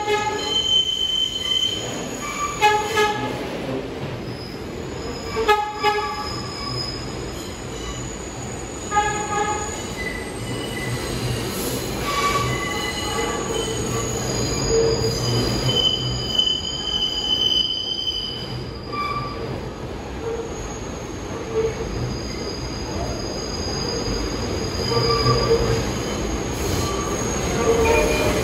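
R62A subway train entering the station. The wheels squeal high on the rails over a steady low rumble, with a few clacks over the rail joints in the first ten seconds.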